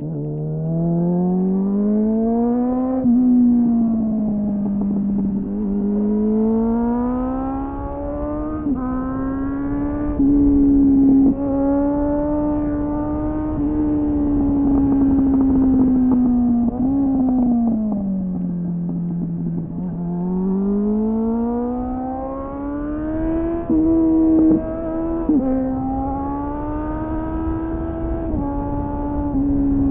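2001 Suzuki GSF600 Bandit's inline-four engine through an aftermarket slip-on exhaust with a home-made dB killer, heard onboard while riding hard. The revs climb and fall again and again, with sudden drops in pitch at gear changes and slower falls on the throttle roll-offs, over low wind noise. The owner says the engine is running lean.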